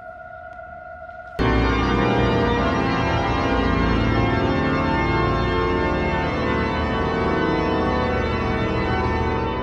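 A steady held note, then about a second and a half in the Grand Organ of Salzburg Cathedral enters with a loud, full sustained chord, many pipes sounding at once. The chord holds and starts to die away in the cathedral's reverberation near the end.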